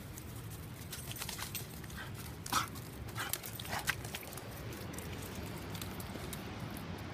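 Footsteps on dry leaf litter and twigs: a quick, uneven run of crunches and snaps from about a second in to about four seconds in, over a steady low rush.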